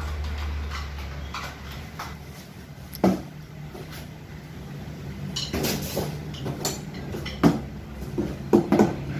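Packaging being handled: cardboard boxes and plastic wrap rustling and knocking, with a sharp knock about three seconds in, a stretch of crinkling a little past halfway, and several thumps near the end.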